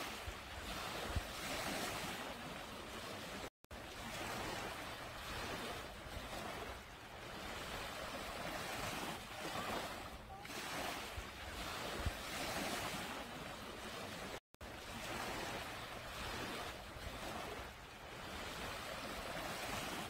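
Small waves washing up and draining back over a sandy beach, the surf noise swelling and fading every few seconds. The sound cuts out completely twice, very briefly.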